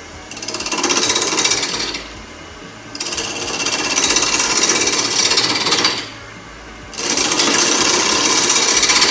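A woodshop power tool running in three bursts of two to three seconds each, a loud, rapid buzzing noise.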